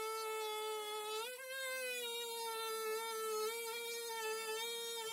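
DeWalt oscillating multi-tool running under load as its blade cuts along the edge of a boat floor where it meets the hull side. The tool gives a steady, high-pitched buzz, and its pitch steps up briefly about a second and a half in.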